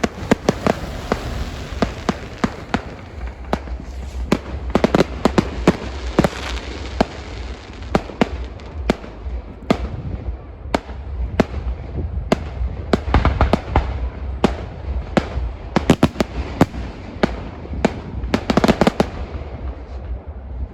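Fireworks going off in a rapid, irregular barrage of sharp bangs and crackles over a low rumble. The bangs cluster in dense volleys and thin out near the end.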